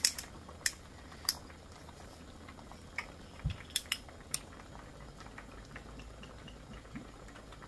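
Glass soju bottle's metal screw cap twisted open, a few sharp clicks in the first second or so as the seal breaks, then more light clicks and a low knock a few seconds in as the cap and shot glass are handled. Near the end the soju is poured into a small shot glass, a faint trickle.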